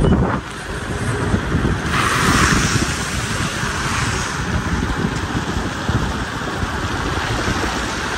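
Wind rushing over a phone microphone held out of a moving car's window, with a steady hiss of tyres and spray on a wet road; the hiss swells for a moment about two seconds in.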